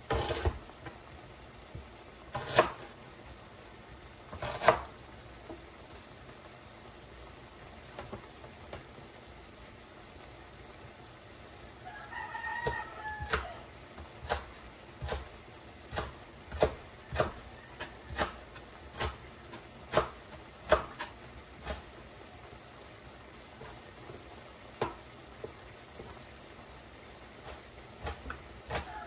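Adobong clam reducing in a stainless pan over a gas flame, spitting with scattered sharp pops, about one a second in the middle stretch, as the sauce cooks dry and the oil comes out. A short wavering call is heard twice, about twelve seconds in and again at the end.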